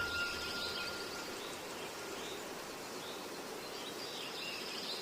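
Outdoor ambience: a steady, soft background hiss with scattered short, high bird chirps. A thin, steady high tone fades out during the first second or so.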